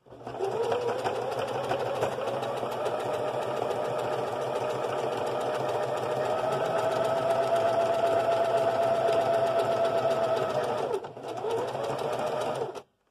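Singer electric sewing machine stitching a zigzag satin stitch around an appliqué. The motor whine rises as it starts and then runs steadily with rapid needle strokes. It slows briefly about eleven seconds in, runs again, then stops just before the end.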